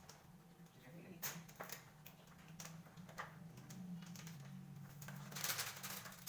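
Scattered light clicks and taps of small objects being handled, over a steady low hum, with a cluster of clicks near the end.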